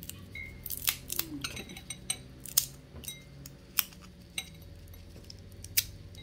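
A cooked chestnut's brittle shell being cracked and peeled off by hand: irregular sharp crackles and snaps, the loudest about two and a half seconds in.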